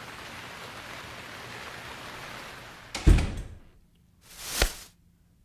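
Door sound effect in a radio drama: a steady hiss, then a heavy thud about three seconds in, and a short swish ending in a sharp click, like a door swung shut and latching.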